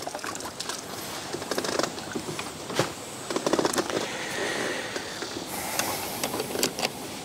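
Water dripping and trickling from a lifted fishing landing net, with scattered small clicks and knocks of fishing tackle being handled.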